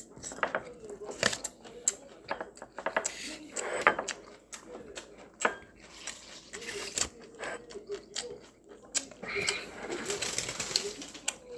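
A person chewing a mouthful of rice paper roll, with irregular wet mouth clicks and smacks and small taps throughout.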